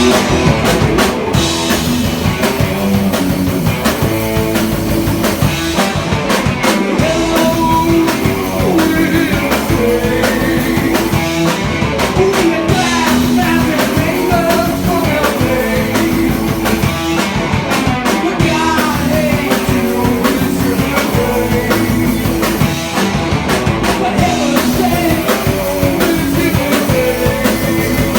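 Live heavy metal band playing: electric guitars and drum kit at full volume, recorded on a cell phone in the crowd.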